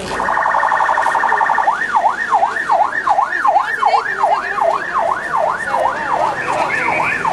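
Ambulance siren sounding. It starts with a fast warble, then about a second and a half in switches to a wail sweeping up and down about twice a second.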